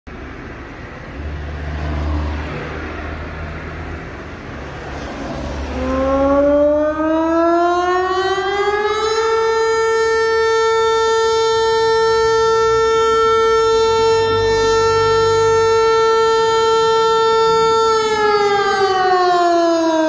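Teho-Ulvo D1800 electronic siren sounding a test tone from its horn-loudspeaker array: after a few seconds of background rumble it starts low, rises in pitch for about three seconds, and holds one loud steady tone. Near the end the tone begins to wind down in pitch.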